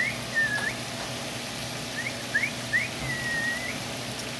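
Someone whistling: a handful of short rising whistles and a longer note near the end that dips and then rises. Under it runs the steady faint sizzle of shrimp frying on a stovetop griddle.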